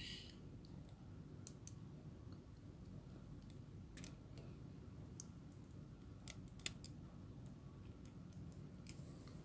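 A handful of sharp, scattered plastic clicks as the joints and panels of a Masterpiece MP-39 Sunstreaker Transformers figure are moved and snapped into place by hand during its transformation, the loudest about two-thirds of the way through, over a faint steady low rumble.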